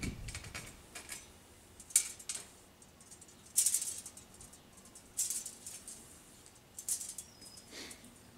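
Thin metal brake line tubing being pulled off its coil and straightened by hand. It gives several short scraping, jangling rattles a second or two apart.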